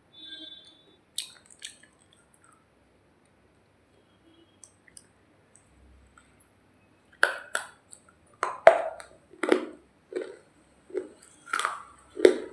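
Dry baked clay being bitten and chewed with crisp crunches. The first seven seconds hold only faint scattered clicks, then a run of sharp, uneven crunches comes about one to two a second.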